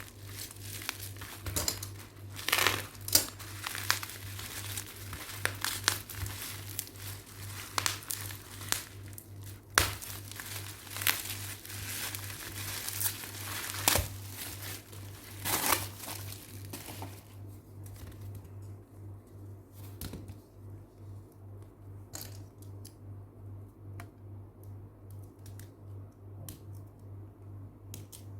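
Packaging being unwrapped by hand: busy crinkling and tearing with sharp crackles, thinning about two thirds of the way through to a few scattered light clicks and taps. A steady low hum runs underneath.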